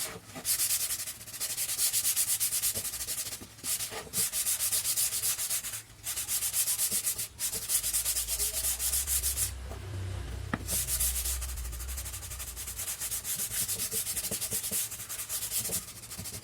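Sandpaper rubbing on wood with quick back-and-forth strokes, in spells of a second or two broken by short pauses; the last spell runs longer.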